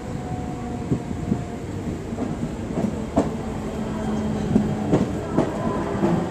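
Mumbai suburban electric local train running into a station, heard from its open doorway. The wheels give several sharp, irregular clacks over the track above a steady rumble and hum.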